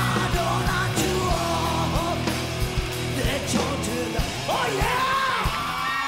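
Punk rock band performing live: shouted, yelling lead vocals over electric guitar, bass and a steady drum beat.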